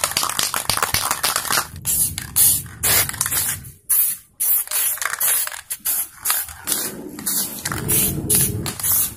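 Aerosol spray paint can hissing in many short bursts as black paint is sprayed onto the metal parts of a portable gas stove.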